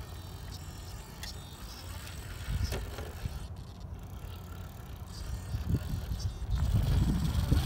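Gmade Komodo Double Cab RC crawler climbing a rock slab slowly, its drivetrain running and tyres working over the rock with a few light knocks, over a low rumble that grows louder near the end.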